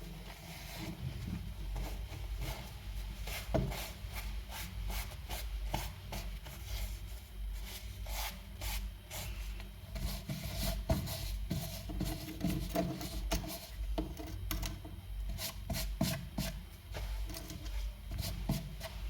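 Small hand tools scraping and rubbing during phone board repair: a run of short, uneven scraping strokes and clicks over a steady low hum.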